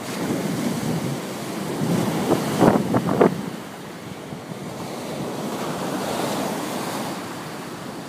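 Sea waves breaking and washing up a sandy beach, with wind buffeting the microphone. A short cluster of louder knocks comes about two and a half to three seconds in.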